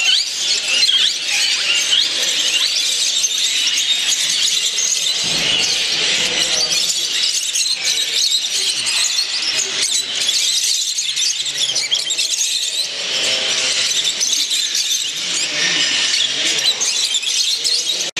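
Dense chorus of many caged show birds chirping and chattering at once, a constant mass of high, overlapping chirps and short whistles.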